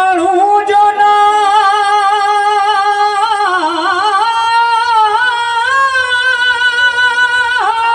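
Male qawwali singer holding one long, wavering sung note over a steady harmonium drone, the pitch dipping and sliding about halfway through.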